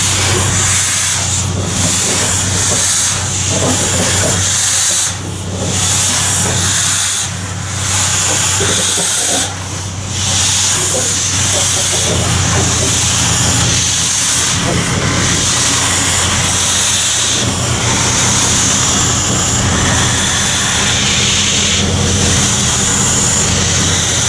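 Standing steam locomotive letting off steam: a loud, steady hiss over a low, even hum. The hiss dips briefly three times in the first ten seconds.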